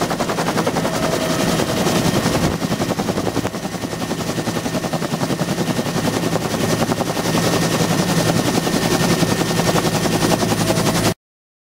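Aircraft running close by with a rapid, pulsing beat, stopping abruptly about eleven seconds in.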